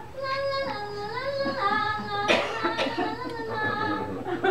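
Music from a television set: a high melody of held, slightly wavering notes that steps down and back up, with a short noisy burst about two seconds in.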